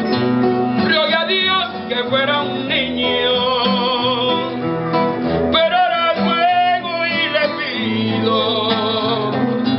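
A man singing into a microphone over a guitar accompaniment, holding long notes with a wide vibrato.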